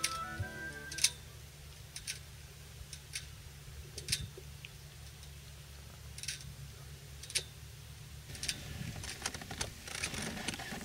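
Background music fading out about a second in, then light, sharp clicks about once a second over a low steady rumble.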